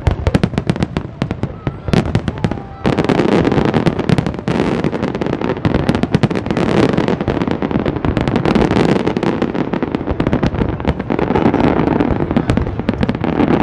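Fireworks display: a quick run of sharp bangs and crackles that thickens about three seconds in into a dense, continuous crackling barrage.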